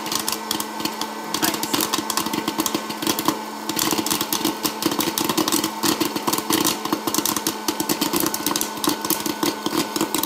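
Hot-air popcorn popper running: its fan motor hums steadily while kernels pop in quick, dense succession and popped corn is blown out of the chute into a stainless steel bowl.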